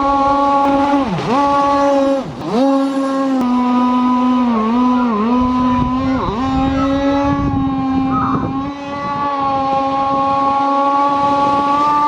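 Internal-combustion model boat engine running at high revs with a steady high note. In the first half its pitch drops sharply and recovers within a fraction of a second several times.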